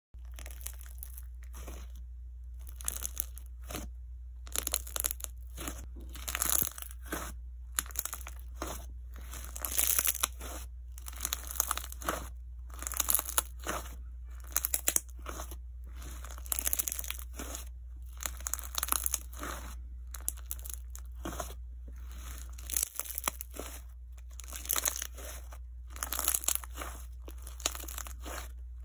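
Clear jiggly slime being kneaded, pressed and squeezed by hand, giving an irregular run of short wet clicks and crackles as it is pulled apart and squashed. A steady low hum runs underneath.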